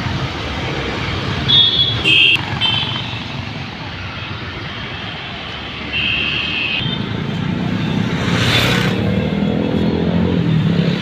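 Road traffic with vehicle horns sounding in short blasts: a couple in the first three seconds and another about six seconds in. A brief hiss comes about eight and a half seconds in.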